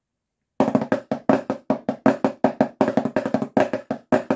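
Drumsticks on a drum practice pad playing a fast snare-drumline rhythm of 16th and 32nd notes with flams and accents, starting about half a second in.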